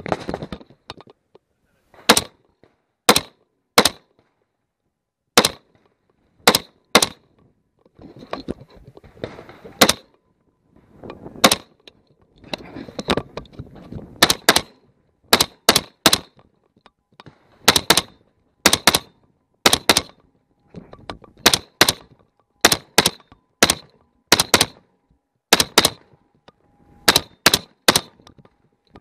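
AR-15 rifle fired in single shots, about twenty in all, some in quick pairs, with short pauses between strings. Scuffing and rustling can be heard between some of the shots as the shooter walks.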